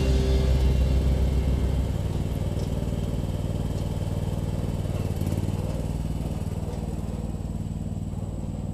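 John Deere garden tractor's engine running steadily as the tractor drives away, the sound slowly fading.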